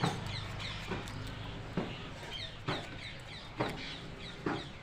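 Birds calling: short clucks a little under a second apart, with quick high chirps between them.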